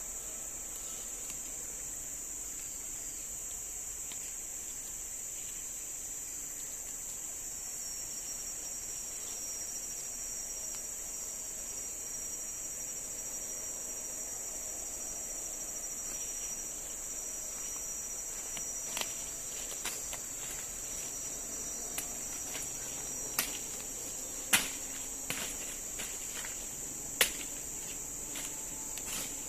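Steady high-pitched chorus of forest insects, crickets or cicadas, hissing without a break. In the last third come several sharp clicks and knocks, two of them clearly louder.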